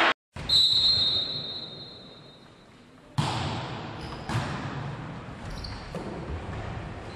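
A referee's whistle sounds about half a second in and fades away. After a lull, a volleyball is struck with a sharp hit about three seconds in, then hit again about a second later and near the end of the rally.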